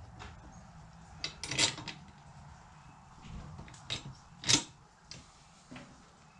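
Metal parts of an Agri-Fab tow-behind spreader (cross brace, bend support and hitch) clinking and knocking together as they are lifted and their bolt holes lined up: a handful of separate sharp clinks, the loudest about four and a half seconds in.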